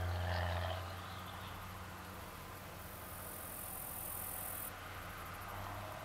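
Distant farm machinery (combine and tractor) humming steadily in a low drone, a little louder in the first second. Partway through, an insect buzzes for about two seconds and stops abruptly.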